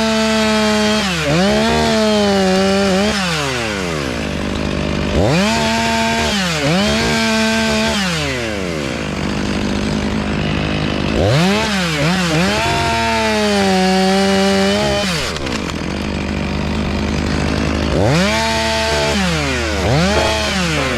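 Two-stroke chainsaw engine repeatedly revved to full throttle, held high for a few seconds at a time, then dropped back toward idle, as in a series of cuts through wood.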